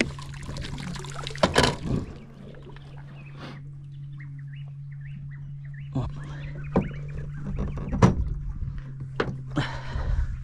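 Outboard motor idling with a steady low hum, under a series of sharp knocks and clunks of gear being handled on an aluminium boat's deck.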